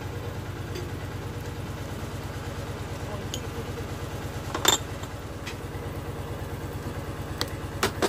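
An engine idling steadily with an even low throb. Metal tongs clink sharply against the wire grill rack about halfway through, and again near the end.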